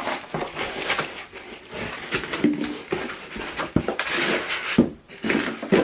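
Plastic packaging rustling and crinkling as unboxed items are handled, with a few sharp knocks and clicks near the end.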